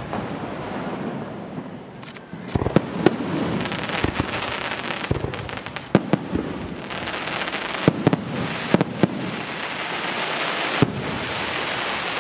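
Aerial fireworks shells bursting overhead: about eight sharp bangs, some in quick pairs, over a continuous crackling hiss of burning stars and rising comets that grows denser in the second half.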